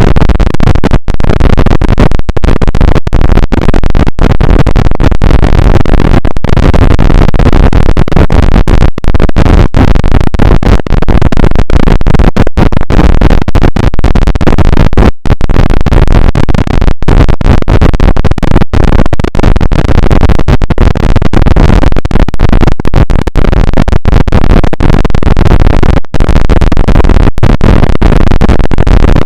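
Very loud, heavily distorted harsh noise running without a break in pitch or rhythm, cut by many brief irregular dropouts.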